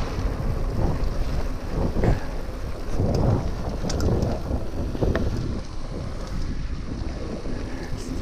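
Wind buffeting the microphone of a handlebar-mounted camera on a mountain bike riding fast down a dirt trail, with a steady rumble of tyres over the dirt. Several jolts and rattles as the bike hits bumps, the strongest about two to five seconds in.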